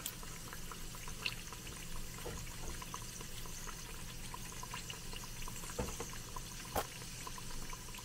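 Empanada deep-frying in a small pot of hot vegetable oil mixed with shortening: a steady sizzle with fine crackling, and a few sharper ticks.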